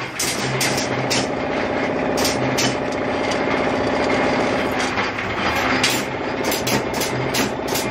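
Steady buzzing hum of workshop machinery. From about six seconds in, regular sharp taps sound over it.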